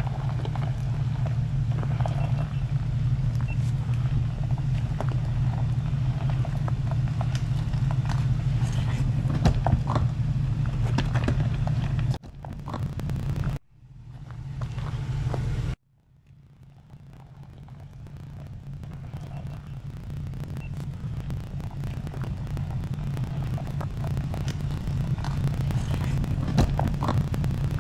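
Jeep Cherokee Trailhawk engine running at low speed as the SUV crawls over rocks, a steady low hum with scattered crunches and knocks from the tyres on stones. The sound cuts off abruptly a little before halfway, then fades back in.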